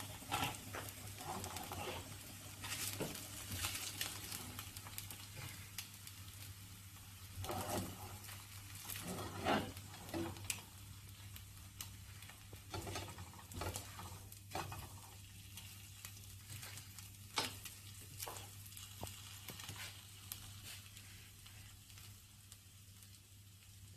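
Eggs frying crisp in a nonstick frying pan with a faint steady sizzle, and a spatula scraping and tapping against the pan as they are turned and lifted out, more often in the first half.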